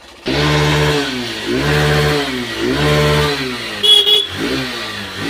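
Hero Super Splendor's single-cylinder engine running and being revved repeatedly, now that the no-start fault has been fixed. The engine note rises and falls three times, then once more briefly, with a short high beep about four seconds in.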